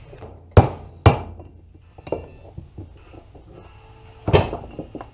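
Hand hammer blows tapping a part into a Toyota RF1A gear-drive transfer case during reassembly: two sharp strikes about half a second apart, a few lighter taps, then another hard strike near the end.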